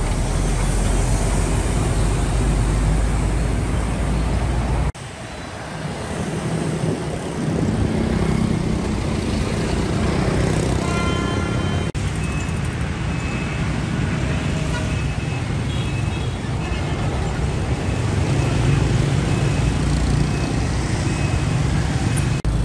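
Diesel-like rumble of a Hyundai CNG city bus engine as the bus pulls past close by. After a sudden cut comes steady street traffic of motorbikes and cars, with a horn sounding about halfway through and short high beeps after it.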